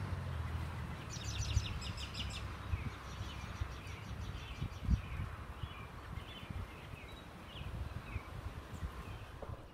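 Birds calling at dusk: a fast run of high repeated notes about a second in, then a series of short chirps, over a low steady outdoor rumble. A single low bump about five seconds in.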